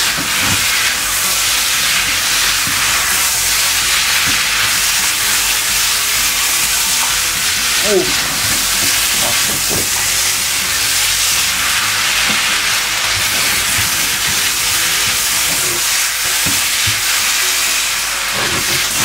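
Koottu curry of chickpeas, yam and coconut sizzling steadily in the pan while it is stirred to mix in the hot coconut-oil tempering.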